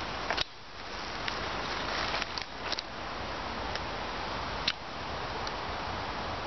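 Scattered light snaps and crackles of twigs and dry leaves in thick brush, a handful of short clicks over a steady hiss.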